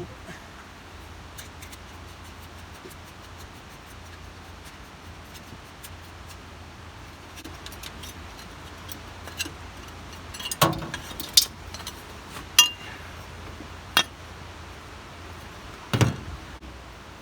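Metal parts and hand tools clinking and knocking during work on a wood gasifier: a few light clicks early on, then a handful of sharp clanks in the second half, the last one a duller knock.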